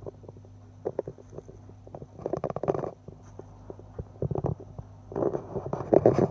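Handling noise from a clip-on phone lens clip rubbing over the phone's microphone: irregular crackling, rumbling scrapes that come in bursts and grow denser and louder near the end, over a steady low hum.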